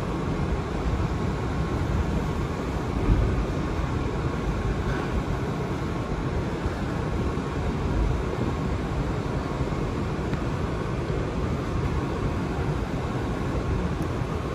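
Steady low rumble and hiss inside a 2022 Kawasaki R211A subway car, with a faint steady hum.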